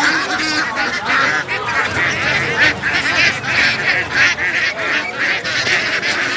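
Many birds calling over one another in a dense, continuous chorus of short calls.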